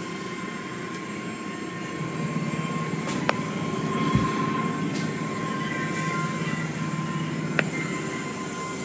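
Automatic car wash running over the car, heard from inside the car: a steady rumble of the brushes and cloth curtains with water and foam spraying on the body, growing a little louder about two seconds in, with a thin steady whine and a few sharp clicks.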